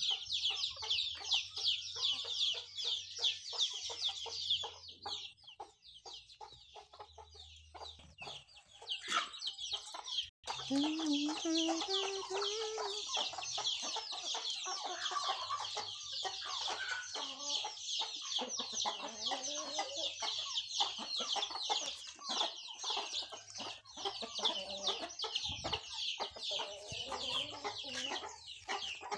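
Chickens clucking, over a dense run of rapid high peeping calls that fades out for a few seconds around five seconds in and then comes back.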